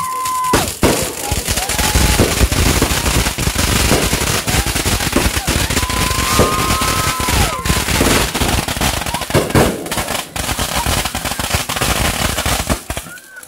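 Fireworks going off in quick succession: a dense run of bangs and crackling, with a high whistling tone near the start and another about halfway through.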